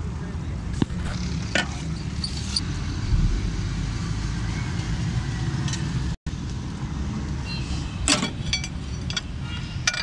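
Carbureted car engine idling steadily, with sharp clicks and metallic taps from a tool being handled in the engine bay. Short high chirps come near the end.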